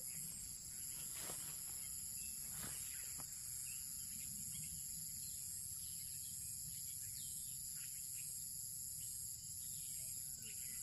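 Steady high-pitched insect chorus, several shrill tones held evenly over a low background rumble, with a few faint ticks in the first few seconds.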